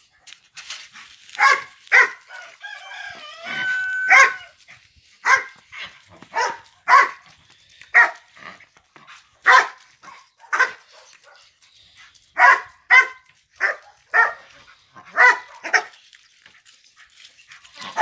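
A dog barking repeatedly: short, sharp barks in irregular runs, roughly one a second.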